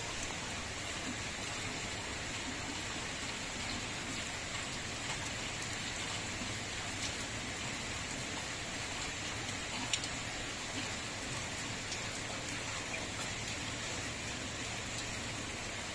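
Steady heavy rain falling, an even hiss with a single sharp tap about ten seconds in.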